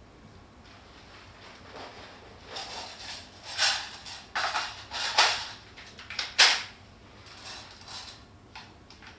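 Toy airsoft gun firing a series of sharp shots and clacks, roughly one a second, the loudest a little after six seconds in, with a few fainter clicks afterwards.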